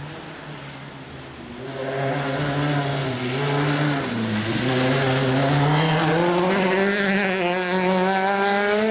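Peugeot 208 rally car engine at speed, growing louder from about two seconds in. Its note drops briefly about four seconds in as the driver comes off the throttle, then climbs steadily as the car accelerates hard.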